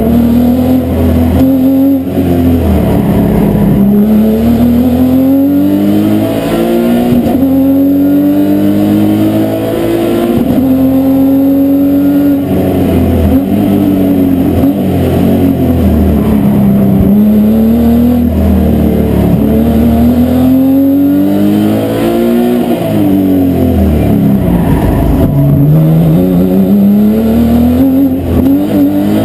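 Audi S4 racing car's engine heard from inside the cabin at speed on track, its pitch climbing over several seconds and dropping again and again as it is worked through the gears and the corners.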